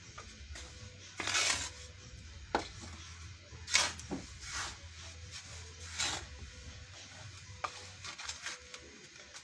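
Two wooden spatulas scraping and stirring sand in a wok, in irregular strokes: the sand-frying of crackers without oil.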